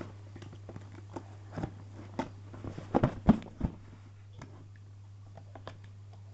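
Folding knife cutting through the packing tape on a cardboard box: irregular scrapes, clicks and knocks of blade and hands on the cardboard, loudest a little after three seconds in, then fading to light scratches.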